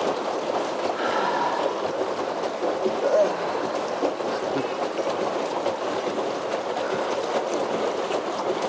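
Steady outdoor background noise over a park lake, with faint distant voices now and then.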